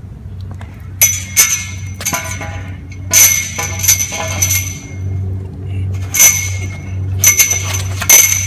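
A long metal pole clanging against the pavement as it is knocked into place. Each strike rings on with the same high, bell-like tone, the strikes coming a second or more apart.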